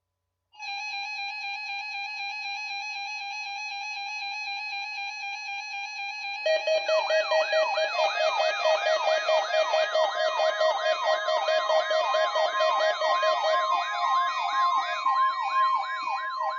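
Electronic alarm tones. A steady, slightly warbling tone comes on about half a second in. About six seconds in, a fast electronic siren sweep joins it, rising and falling a little more than twice a second over steady tones.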